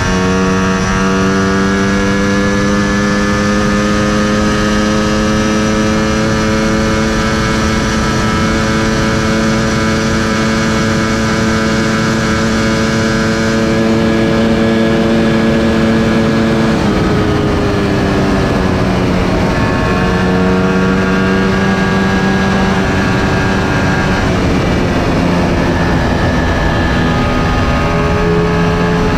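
Sport motorcycle engine running at high revs under a steady rush of wind and road noise. Its pitch creeps slowly upward for over half the time, drops a little past the middle, then holds at a lower, steadier pitch with small steps up and down.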